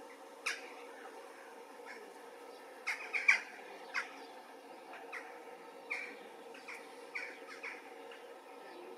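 Songbirds calling: a dozen or so short, sharp chirps at irregular intervals, several in a quick cluster about three seconds in, over a steady faint hum.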